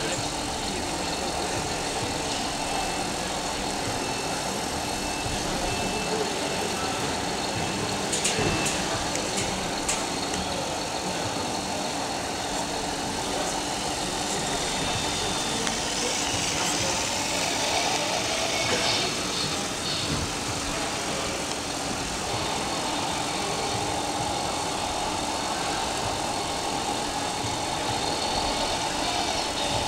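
Steady engine hum of radio-controlled model fire trucks idling, over the background murmur of a busy exhibition hall, with a few faint clicks about a third of the way in.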